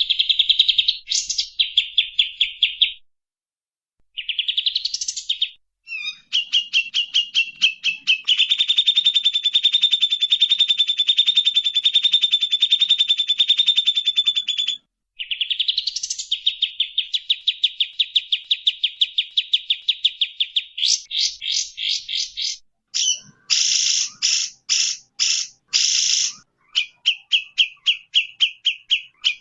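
Songbird song, loud and high-pitched: long, fast trills of rapidly repeated notes and runs of sharp chirps, with a few brief pauses.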